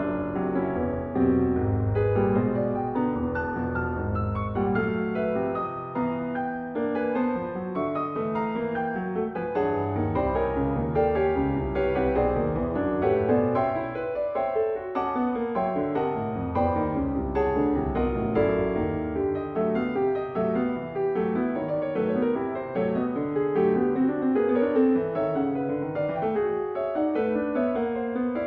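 Solo piano playing a busy passage of many quick notes. Deep bass notes sound beneath it in stretches during the first two-thirds.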